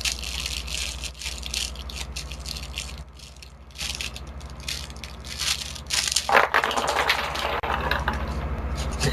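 Rattling, clicking and crinkling from airsoft gear being handled by hand, with a louder, denser stretch of scraping and crackling about six seconds in.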